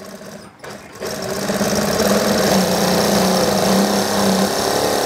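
Industrial high-speed lockstitch sewing machine starting up about a second in and running steadily at speed, stitching a folded bias-tape strap through a binder foot.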